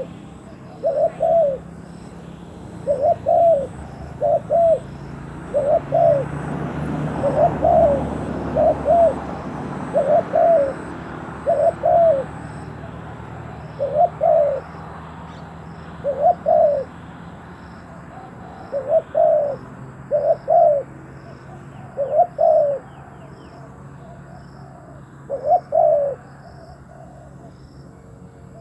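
Spotted doves cooing: a long series of short, low coo notes, often in pairs, every second or two.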